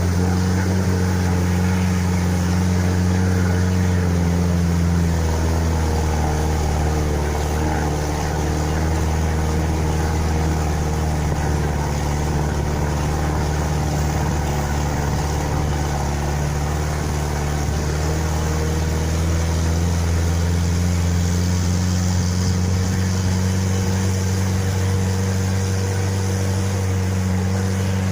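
UAZ-469's ZMZ-406 inline-four petrol engine running steadily under way, a continuous low drone whose pitch shifts a little midway and then settles again.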